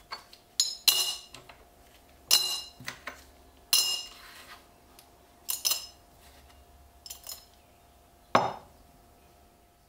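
Small steel knife parts clinking against a hard surface: about seven sharp, ringing metallic clinks at irregular intervals, then one duller knock near the end.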